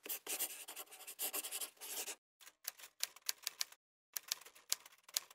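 Marker pen scratching across paper in quick strokes: about two seconds of near-continuous scribbling, then a short pause and a run of short strokes with sharp taps.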